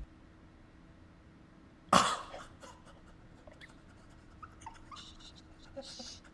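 A single sudden sharp pop about two seconds in, dying away within half a second, over a faint steady hum, followed by scattered small clicks and knocks.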